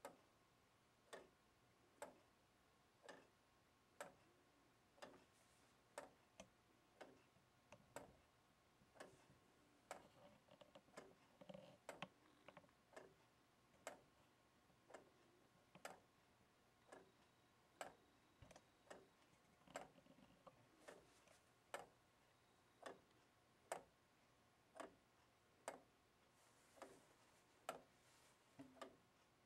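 Wooden Clayton Boyer Simplicity clock with plywood gears ticking softly and evenly, about once a second, as its pallets gently strike the escape wheel.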